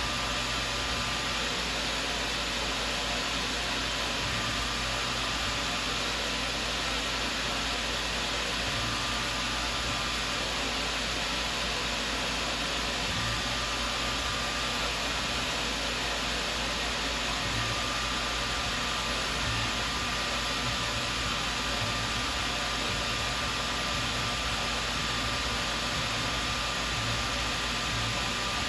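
Tormach CNC mill running a mill-turning cut, its spindle spinning steadily with an even, noisy whir and a faint high tone that comes and goes.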